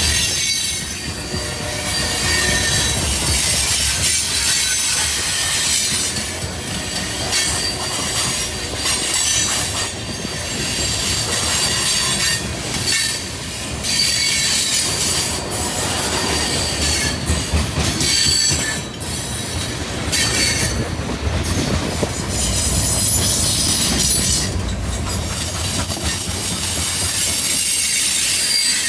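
Loaded freight cars rolling past close by on a curve. Their steel wheels squeal in high, shifting tones over a steady low rumble, with scattered knocks from the wheels and couplers.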